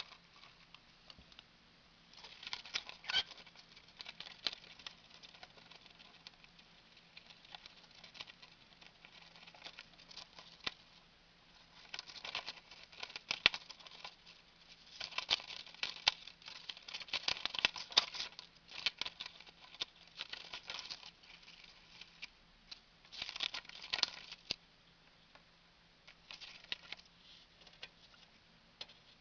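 A cockatiel tearing and chewing paper with its beak. The crinkling, tearing and quick clicks come in irregular spells with short pauses between them.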